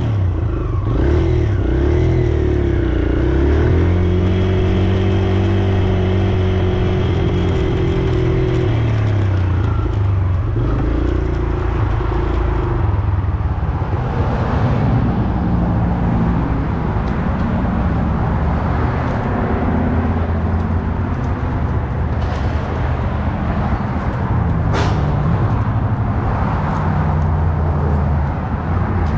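Kawasaki KLX 140 dirt bike's single-cylinder four-stroke engine running while being ridden, its pitch rising and falling as the throttle is opened and eased off. A brief sharp click comes near the end.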